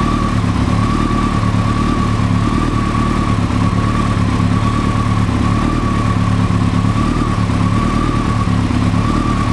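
Kawasaki ZX-14's inline-four engine idling steadily, with a steady high whine running over it.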